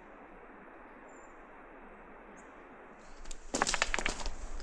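Steady rush of creek water at a beaver dam, with a couple of faint high bird chirps. Near the end it gives way to loud, irregular crunching and knocking noises.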